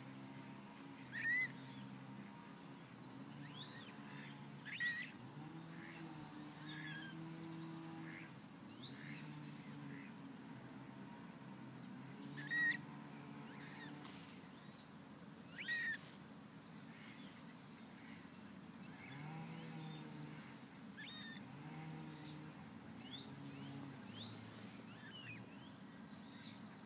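Eurasian coots giving short, sharp calls, four times, over faint twittering of small birds and a low wavering hum.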